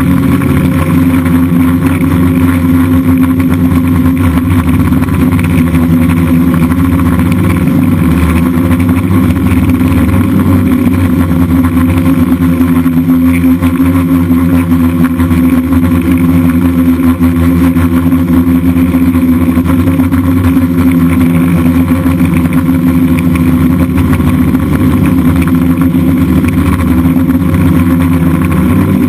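DJI F550 Flame Wheel hexacopter's six electric motors and propellers buzzing steadily in flight, picked up by the onboard camera.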